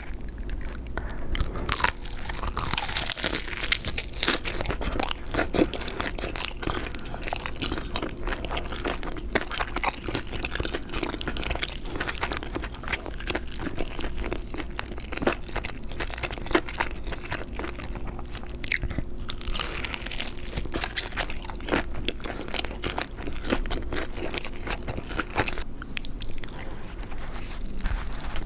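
Close-miked mukbang eating: crunchy food bitten and chewed, a dense run of sharp crunches with no let-up.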